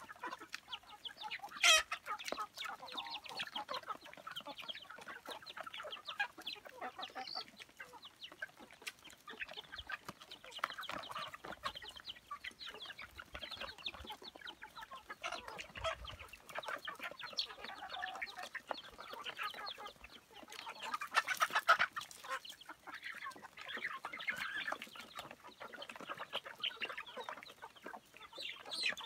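A flock of chickens clucking continuously as they crowd together pecking at feed. A sudden loud sound comes about two seconds in, and the calls grow louder for a moment about two-thirds of the way through.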